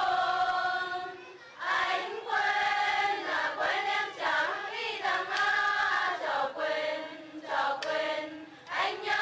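Group of young women singing a Vietnamese hát dô folk song together, in several long held phrases with short breaks between them.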